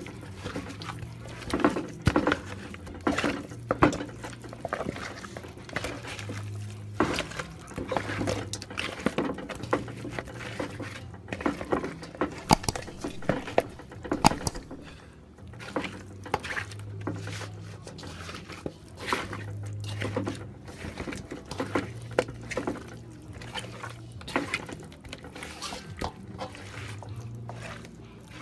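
Hands rubbing seasoning and browning into raw oxtail pieces, with many irregular short clicks and smacks as the meat is worked.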